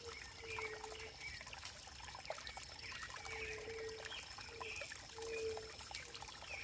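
Running water trickling and splashing, with a crackle of small drips and splashes. A short low note, held for about half a second, comes several times, and quick high chirps of birds sound now and then.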